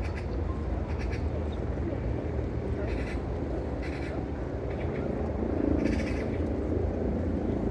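Short, separate animal calls repeating every second or so over a steady low rumble.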